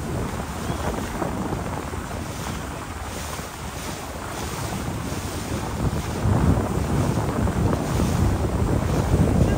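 Wind buffeting the microphone on the deck of a river cruise boat under way, over the steady rush of the boat moving through the water. The wind gusts grow louder about six seconds in.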